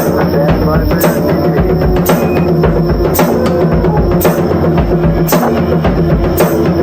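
Drum solo: dense, busy drumming over a steady pounding low drum, with a sharp accent about once a second.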